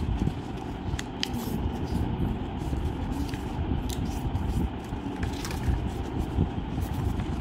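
Sheet of paper being folded and creased flat by hand, with a few light crinkles and scrapes. Under it runs a steady low rumble that is the loudest thing heard.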